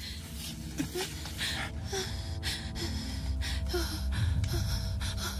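A sick woman's heavy, gasping breaths, about two a second, the sound of her distress. Faint sustained background-music tones sit beneath.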